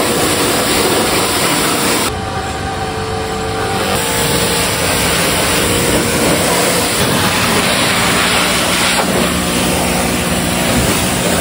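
Pressure washer running, its jet of water hissing and spattering against a motorcycle's bodywork and rear wheel, with a steady motor hum underneath. The spray sound changes abruptly a few times as the jet moves or the scene cuts.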